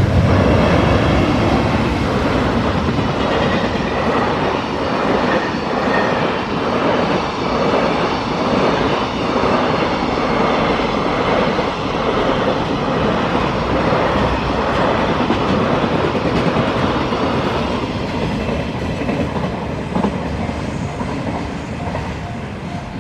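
Freight train wagons rolling past over a level crossing, wheels clacking over rail joints in a steady rhythm; the noise eases off about 18 seconds in as the train's end passes. Near the end, a level crossing alarm keeps ringing in an even repeating pattern.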